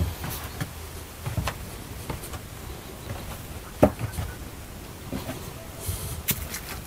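Footsteps and scattered knocks on the wooden rungs and planks of a barn loft, with one sharper knock about four seconds in.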